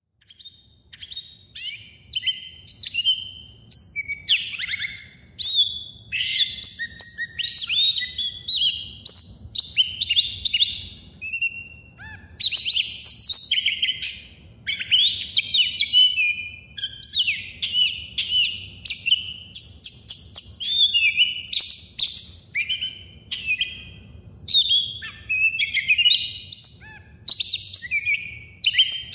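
Many birds chirping and singing at once: a dense chorus of quick, overlapping calls and short whistles, with a faint low hum underneath.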